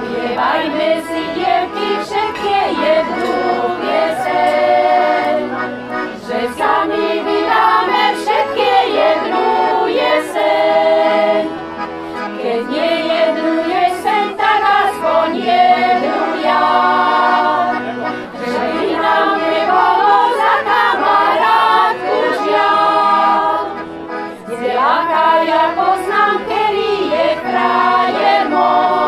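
Women's choir singing with accordion accompaniment, in phrases with short breaks between them.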